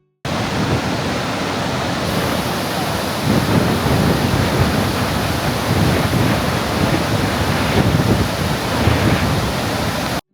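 Lower Yosemite Fall's water pouring down, a loud steady rush of falling water, with wind buffeting the microphone in an uneven low rumble.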